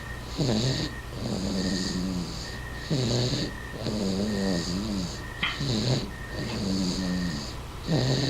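Seven-month-old baby snoring in sleep: pairs of snores, a short one then a longer one, repeating about every two and a half seconds, three times over.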